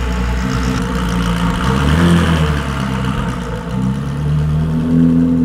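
Ferrari 458 Challenge Evo's V8 running at low speed as the car is brought into the garage, its note stepping up slightly about two seconds in and again near the end.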